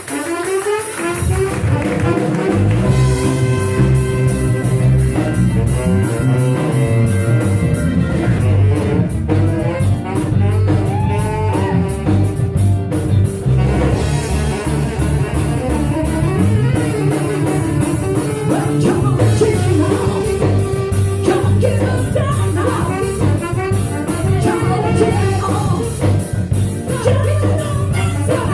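Live band playing, with bass and drums coming in about a second in under melodic instruments and voice.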